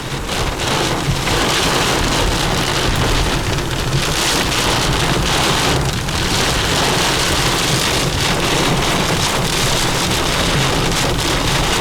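Heavy rain and strong wind pounding a moving vehicle, a loud, steady rush: the rear-flank downdraft of a tornadic supercell.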